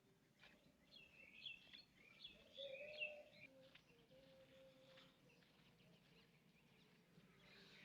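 Faint outdoor quiet with a few birds chirping, clustered in the first few seconds.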